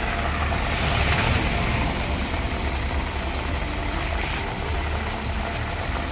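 Loaded truck's diesel engine running, a steady low rumble under an even hiss.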